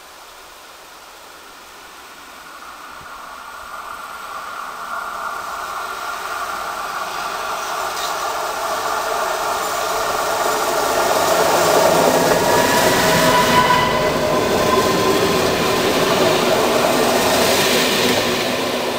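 Class 854 diesel-hydraulic locomotive approaching on curved track and passing close with a coach in tow. The engine and wheel noise grows steadily louder, with a steady whine over it, and is loudest as the train goes by near the end.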